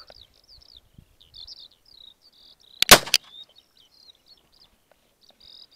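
Small birds chirping and calling on and off, with one loud, sharp shot from a scoped rifle about three seconds in, the loudest sound.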